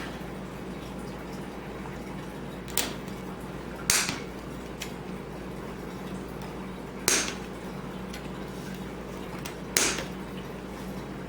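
Sharp knocks on the plastic filter cartridge as it is being worked open: four strikes a few seconds apart, the first light and the rest louder, each ringing briefly, over a steady low hum.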